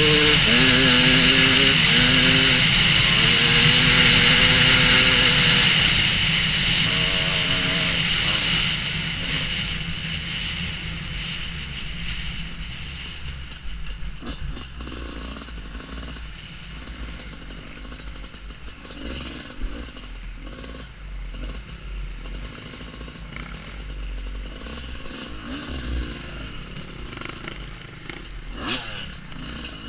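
Two-stroke dirt bike engine revving hard, its pitch rising and falling for about eight seconds, then fading away. A quieter low rumble follows with scattered knocks and a sharp clack near the end.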